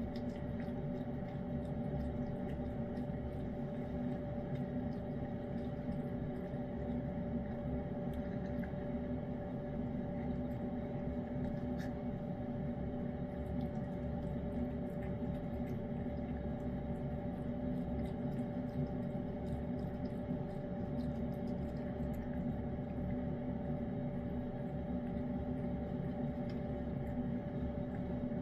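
A cat eating wet pâté cat food, heard as faint, scattered small licking and chewing clicks over a steady low electrical hum.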